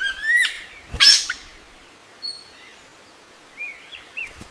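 Wild birds calling: a rising whistled note at the start, a loud harsh burst about a second in, then a few short chirps near the end.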